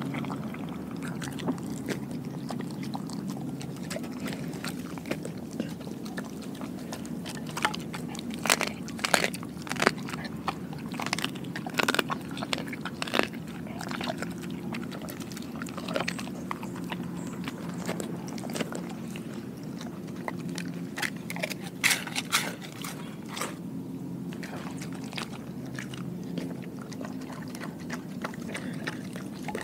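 Dog chewing and crunching raw food: irregular wet bites and crunches, coming thickest in clusters about a third of the way in and again about three quarters of the way through.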